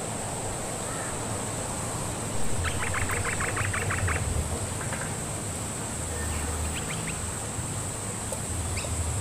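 A bird's rapid run of short, sharp calls, about seven a second for nearly two seconds, over a steady high-pitched insect drone and a low hum.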